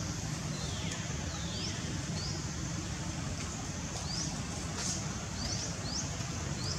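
Small birds giving short rising chirps again and again, with two longer falling calls about a second in, over a steady low rumble.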